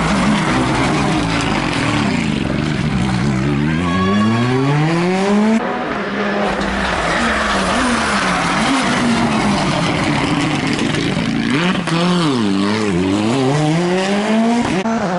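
Rally cars passing flat out one after another on a tarmac stage. Engine pitch climbs steeply as they accelerate, then drops sharply under braking and downshifting about four seconds in and again about twelve seconds in.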